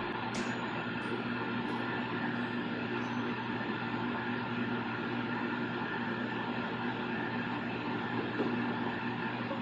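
A steady mechanical hum with several held tones over an even background noise, unchanging throughout.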